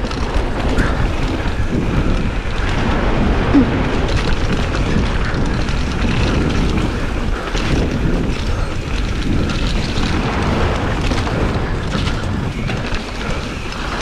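Wind buffeting a handlebar camera's microphone on a mountain bike riding fast down a dirt trail, with tyres rumbling over the dirt and the bike rattling over bumps.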